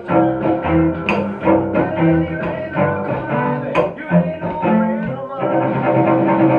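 Cello bowed through a rock-and-roll bass line of repeated short notes, with sharp percussive strokes in among them.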